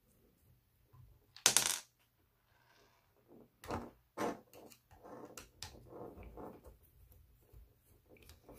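Hex driver backing screws out of an RC car's plastic chassis, with small clicks and scrapes. About a second and a half in, a loosened metal screw drops and clatters on the table; this is the loudest sound.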